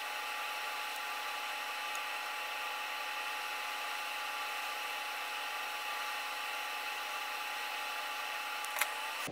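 Hot air rework station blowing steadily, a hiss with a steady whine, heating a chip on the phone's logic board to free it from the board. A small click near the end.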